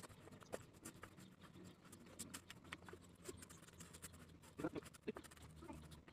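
Brooms sweeping a paved driveway: faint, irregular scratching strokes of bristles on the pavement.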